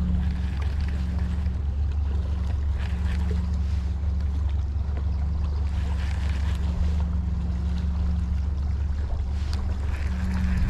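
Boat motor running steadily with a low, even hum, with wind rushing over the microphone.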